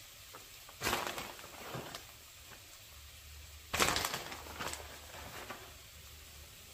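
Plastic bag of grated cheese crinkling twice as cheese is shaken and pinched out of it: one rustle about a second in and a louder one near four seconds in, each dying away over about a second.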